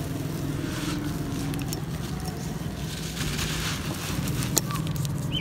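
Dry, crumbly dirt clumps crushed and broken apart by hand, with a dry crunching and grit trickling down in small ticks and rustles. A steady low hum runs underneath.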